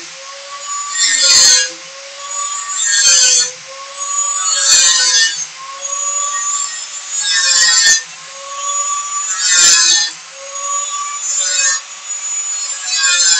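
Angle grinder with a thick 1.9 mm Rhodius cut-and-grind disc cutting through steel wire mesh. The motor's steady whine dips a little each time the disc bites, with a harsh burst of grinding roughly every two seconds as it goes through wire after wire.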